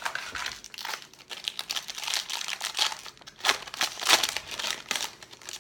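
Foil wrapper of a baseball card pack being torn open and crinkled by hand, a run of irregular crackles.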